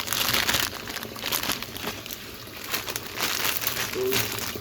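Plastic instant-noodle packet crinkling in uneven bursts as it is handled.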